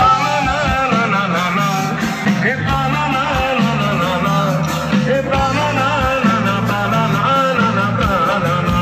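Live band music with a male lead vocal: drums and hand percussion keep a steady beat under sustained bass notes and a wavering melody line.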